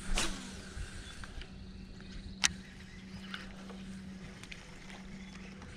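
A cast with a baitcasting rod and reel: a quick whir that falls in pitch as the spool spins out the line, then a few sharp clicks, the loudest about two and a half seconds in. A steady low hum runs underneath.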